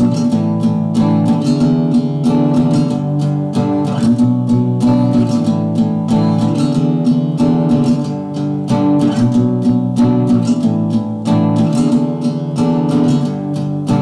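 Background music: strummed acoustic guitar with a steady rhythm.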